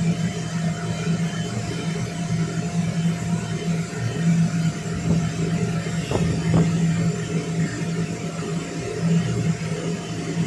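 Electric blower keeping an inflatable bounce house inflated, running with a steady low hum and a faint high whine, heard from inside the inflatable. Two faint knocks a little past halfway.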